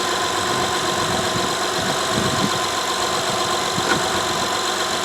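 2012 Honda Odyssey's 3.5-litre V6 idling steadily, running smoothly with no misfires on its new spark plug.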